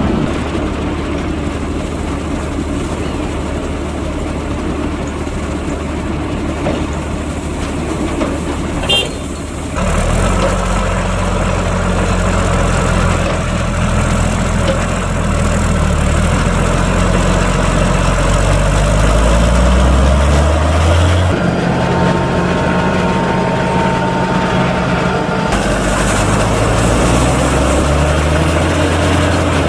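Large farm tractor diesel engines running, their pitch stepping up and down as they work, while forage wagons unload chopped maize silage. The sound shifts abruptly about ten, twenty-one and twenty-five seconds in.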